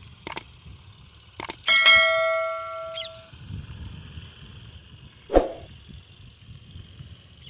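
Subscribe-button animation sound effect: two quick mouse clicks, then a bright bell ding that rings and fades over about a second and a half. A single sharp thump about three seconds after it.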